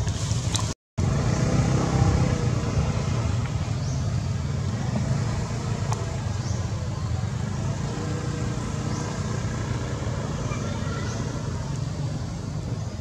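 Steady low outdoor background rumble, like distant road traffic. It cuts out completely for a moment about a second in.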